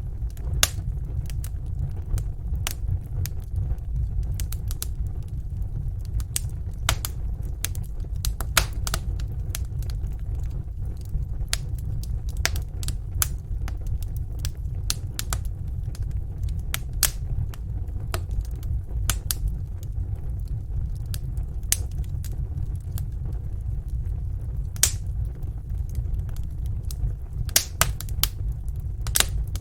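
Wood fire crackling in a fireplace: irregular sharp pops and snaps, a few louder than the rest, over a steady low rumble.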